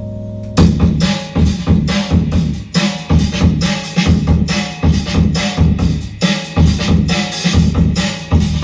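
Live experimental electronic music. A held drone chord cuts off about half a second in, and a loud, noisy beat with deep bass takes over, pulsing in a steady repeating rhythm.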